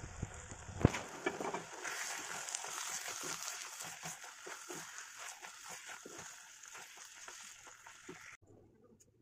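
Thick pav bhaji vegetable mash sizzling in a pan and being stirred and scraped with a wooden spatula: a steady hiss under irregular soft scrapes and plops, with one sharp knock about a second in. The sound cuts off near the end.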